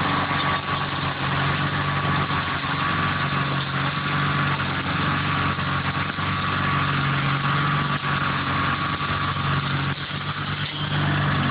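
Toro aero seeder's small engine running steadily at a constant pitch as the walk-behind seeder is pushed across the lawn, with a thin high whine over the engine hum. The sound dips briefly about ten seconds in, then steadies again.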